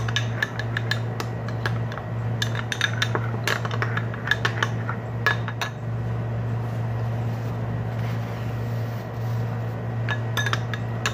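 A metal spoon stirring sauce in a glass bowl, clinking and scraping against the glass in quick irregular ticks. The ticks thin out in the middle and pick up again near the end, over a steady low hum.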